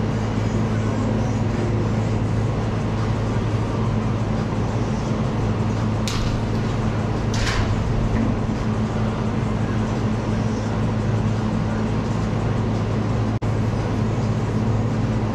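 Steady mechanical hum and noise of a large indoor training hall, with a low drone throughout. Two sharp smacks about a second apart, a little past the middle, from balls being thrown and caught during pitching practice.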